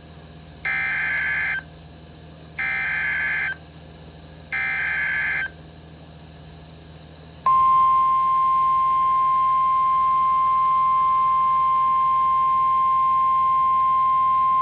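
Emergency Alert System tones for a severe thunderstorm warning. First come three roughly one-second bursts of SAME header data, a harsh buzzing of rapidly switching tones. After a short gap, about seven seconds in, the steady single-pitch 1050 Hz Weather Radio alert tone begins and holds.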